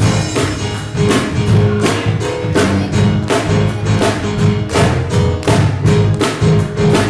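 Gospel band playing an instrumental break with a steady driving drum beat, bass and guitar, between sung verses.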